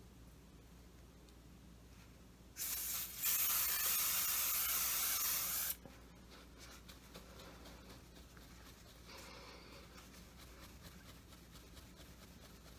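Preval aerosol spray unit hissing as it sprays alcohol-based body paint: a short spurt about two and a half seconds in, then a steady spray lasting about two and a half seconds that cuts off suddenly.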